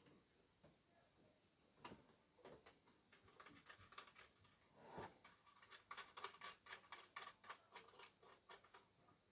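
Faint clicks and taps of hands handling cables and connectors at the back of a black electronic unit: scattered at first, then a quicker run of small clicks, about four or five a second, over the last few seconds.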